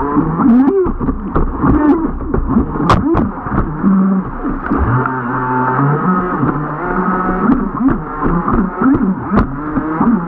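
Radio-controlled jet boat's motor running and revving up and down repeatedly, its pitch rising and falling, with a steadier held pitch about halfway through.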